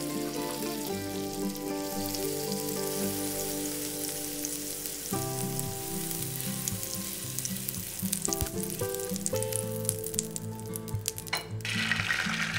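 Butter sizzling and crackling as it melts in a hot nonstick frying pan. Near the end, beaten eggs poured into the pan set off a louder, fuller sizzle.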